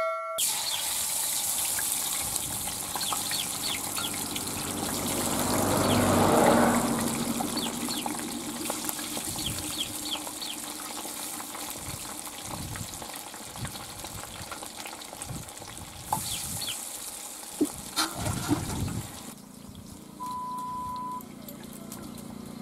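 Fish deep-frying in hot oil in an iron kadai: a steady sizzling hiss with scattered crackles and pops.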